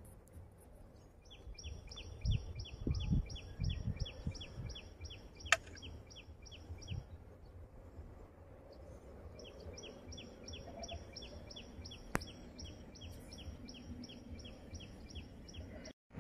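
Rapid, evenly spaced high chirps from a bird or insect, about four a second, in two runs of about five seconds each with a short pause between, over low wind rumble on the microphone in the first few seconds.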